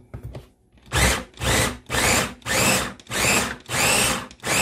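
Ninja electric chopper pulsed in about seven short bursts, roughly one and a half a second, each whir rising and then dropping in pitch as the blade chops tomatoes, onion and hot peppers in the bowl. A few clicks and knocks come in the first second as the motor head is set on.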